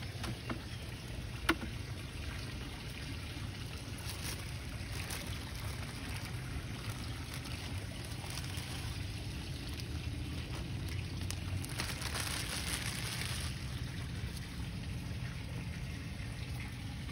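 A thin plastic bag rustling and crinkling in short bursts as live crickets are shaken out of it, over a steady low outdoor rumble. A single sharp click about a second and a half in.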